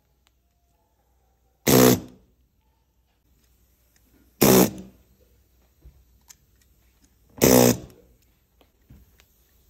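Pneumatic air hammer with a rubber-capped bit, pressed into tufted upholstery and fired in three short buzzing bursts about three seconds apart.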